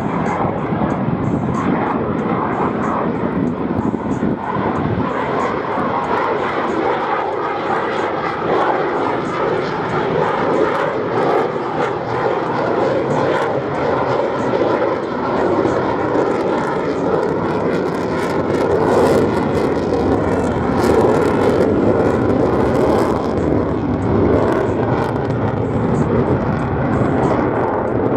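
An F-35A fighter's Pratt & Whitney F135 afterburning turbofan running at high power in flight: continuous loud jet noise that grows louder in the second half, with a crackling edge.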